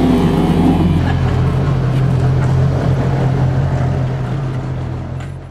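Late model stock car's V8 engine running steadily at a low idle in the pits, a loud deep hum. It fades out near the end.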